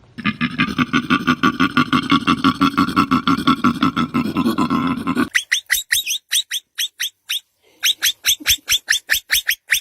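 Animal calls: first a fast, even train of pulses, about ten a second, for roughly five seconds. It breaks off suddenly and is followed by a string of short rising chirps, about four a second, with a short pause partway through.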